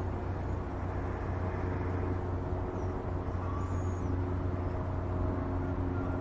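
Steady low rumble with a few faint steady hum tones over it, and a few faint high chirps in the first few seconds.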